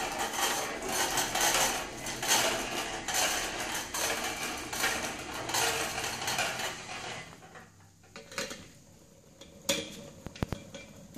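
Metallic clattering and rattling from a workshop engine crane as it is wheeled across a concrete floor with a V8 engine hanging from it. The noise dies down after about seven seconds, leaving a few sharp knocks near the end.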